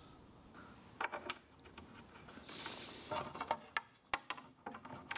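Wood being handled: light knocks, clicks and rubbing in scattered clusters, with one sharp click about four seconds in.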